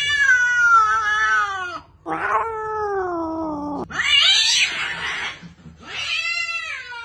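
A cat yowling in long, drawn-out cries one after another, each sliding down in pitch.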